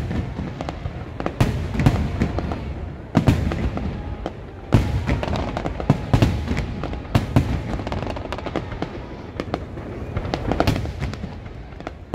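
Aerial firework shells bursting in quick succession: a run of loud booms about once a second, with smaller pops and crackling between them.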